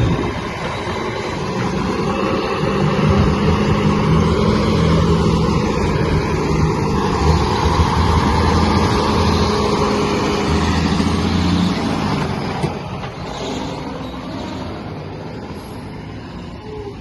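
Large truck's engine running with a steady hum, strongest in the middle, then fading away gradually after about twelve seconds.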